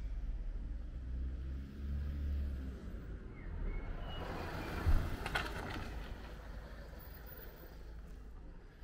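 A vehicle passing on the street: its noise swells up about four seconds in, peaks with a short thump around five seconds, then fades away. Under it is a steady low rumble, with a few short bird chirps.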